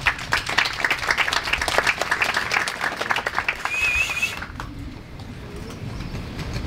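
Audience applauding, a dense patter of many hands clapping that dies away about three seconds in, followed by a brief high wavering whistle.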